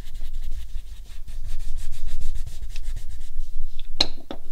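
Wax crayon rubbed back and forth on paper, colouring in with quick repeated scratchy strokes. A few sharp taps about four seconds in, as the strokes stop.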